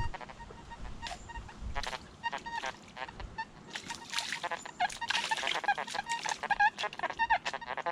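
Nokta Makro metal detector chirping rapidly with short, same-pitched beeps as it is swept over wet, junk-filled creek-bed ground. A stretch of rough, hissy noise comes in about four to six seconds in.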